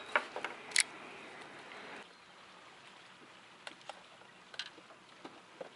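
Fishing rod and reel being handled: a few sharp clicks in the first second, then scattered light ticks over faint water lapping.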